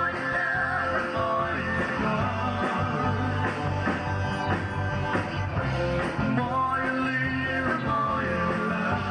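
Live band playing an amplified rock-style song: voices singing over electric guitar, keyboard and a steady bass line.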